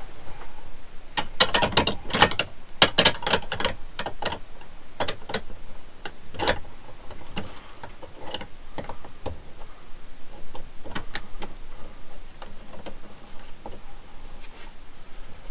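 Weems & Plath brass yacht lamp clicking and clinking against its brass gimbal bracket as it is worked into the mount. There is a quick run of sharp metallic clicks about one to three seconds in, then scattered lighter ticks.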